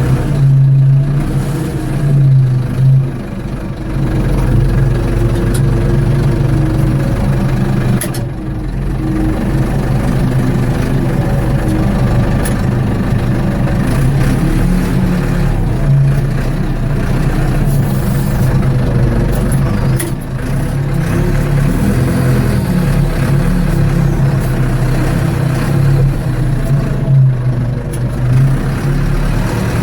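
Ford 755B backhoe's diesel engine running steadily, its note rising and falling a little.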